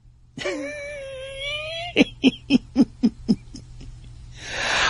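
A man laughing: a long, high-pitched drawn-out note, then about six short 'ha' bursts at about four a second, ending with a breath drawn in.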